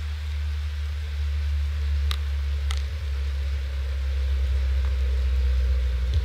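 Rain and wind on an outdoor webcam's microphone: a steady low rumble with a hiss over it, and two sharp ticks a little over two seconds in.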